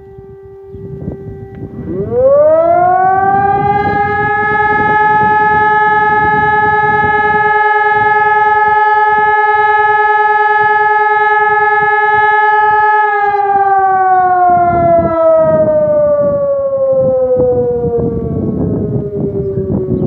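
Civil defence siren sounding its routine test: it winds up to a steady wail within about two seconds, holds the pitch for about ten seconds, then slowly winds down with falling pitch.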